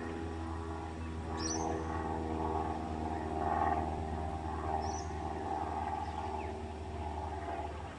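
Tibetan Mastiffs growling at each other in rough play, over a steady low hum. Two brief high chirps come through, one about a second and a half in and one about five seconds in.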